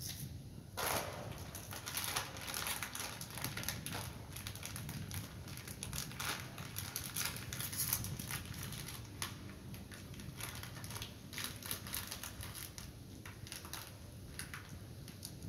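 Plastic snack wrapper crinkling and rustling in irregular crackles as it is handled and opened, starting with a sharp crinkle about a second in.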